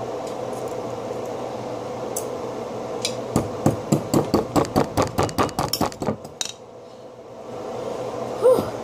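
A metal spoon knocking rapidly against frozen ice, about five knocks a second for some three seconds starting about three seconds in, then again near the end, over a steady background hum.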